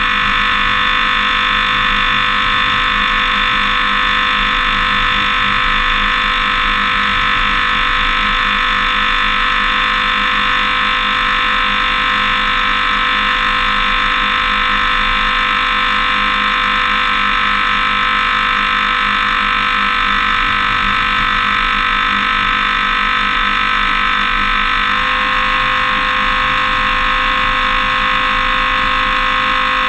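Toyota Tundra prerunning off-road at a steady pace: a constant droning whine of engine and drivetrain. Its pitch steps up slightly about 25 seconds in.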